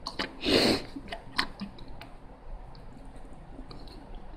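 Lego bricks being handled and pressed together: a short rustle about half a second in, then several sharp little plastic clicks over the next second or so, followed by quieter fiddling.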